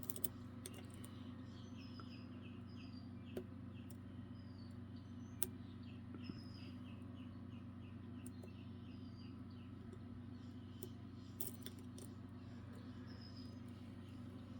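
Occasional sharp clicks of lock picks working the pins of a Godrej Scorpio padlock, over a steady low hum. Short chirps from a bird sound in quick runs in the background.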